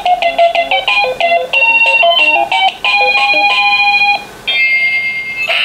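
Anpanman talking toy oven range playing its electronic beeping cooking melody while it heats, the notes stopping about four seconds in, followed by a held electronic tone near the end.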